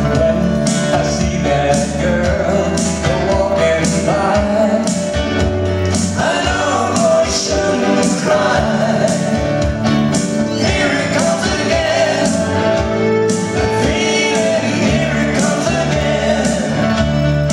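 Live band playing a pop song: male singing over electric guitar, bass guitar and keyboards, with a steady beat.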